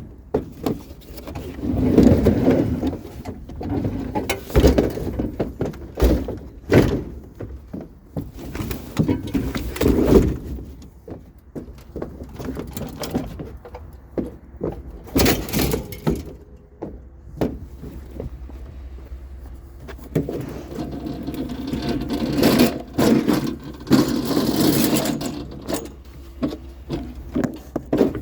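Metal lawn equipment being handled and loaded: repeated clanks and thuds with stretches of scraping and squeaking.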